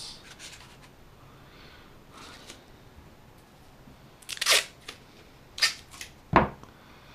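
Handling noise as a roll of masking tape is picked up off a table: a quiet stretch with faint small clicks, then two short scratchy noises and a sharp knock near the end.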